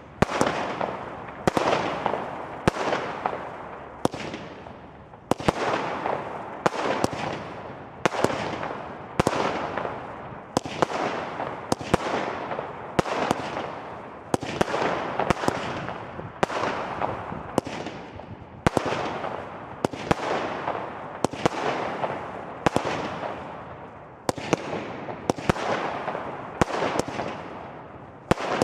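Consumer firework battery (cake) firing shot after shot, about one bang a second, each sharp bang trailing off in a hiss that dies away before the next.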